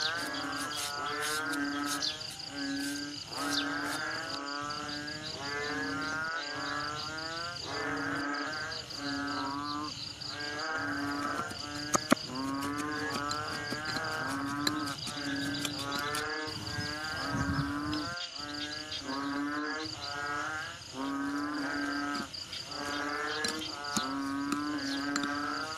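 Background instrumental music: a wavering melodic phrase repeating about once a second over a faint steady high tone. A single sharp click comes about halfway through.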